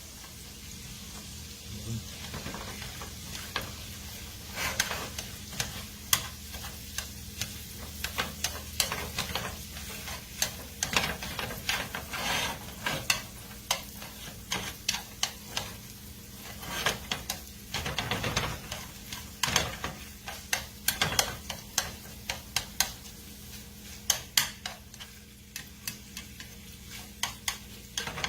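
Ground pork frying in lard with garlic in a pan, sizzling steadily, while a utensil stirs and breaks up the meat, clicking and scraping against the pan many times at an uneven pace.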